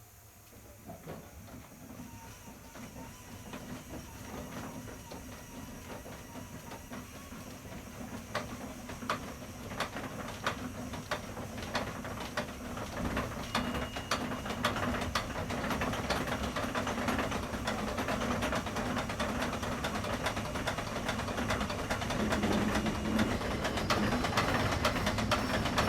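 Steam crane starting up: its machinery clatters with rapid knocks and a steady low hum over a hiss of steam, growing gradually louder as it builds up to steady running.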